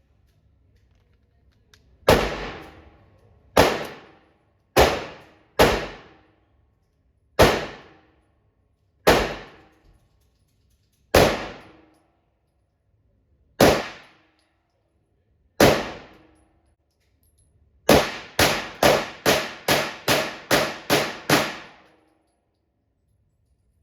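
9mm pistol being fired: nine single shots a second or two apart, then a quick string of about ten shots over four seconds.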